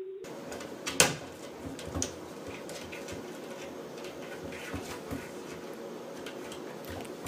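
Kitchen cabinet door knocking and rattling against its frame as a cat paws and pries at it. There is a sharp knock about a second in, another about two seconds in, and lighter taps after.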